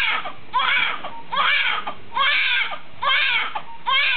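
Newborn baby crying: a steady run of short wailing cries, each arching up and then down in pitch, with brief gaps between.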